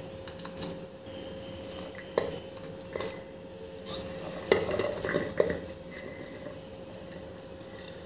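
Cauliflower florets dropped by hand into a steel pot of hot water: a scatter of soft splashes, knocks and clinks against the pot, the loudest a few seconds apart, about two, four and a half and five seconds in.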